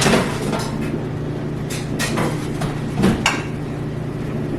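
Kitchen handling sounds: several light clicks and knocks of dishes and utensils being moved, with a louder pair about three seconds in, over a steady low hum.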